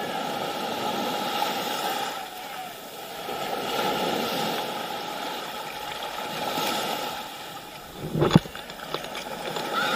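Small waves washing on a sandy shore, the rush of water swelling and falling back every few seconds. A single sharp knock about eight seconds in.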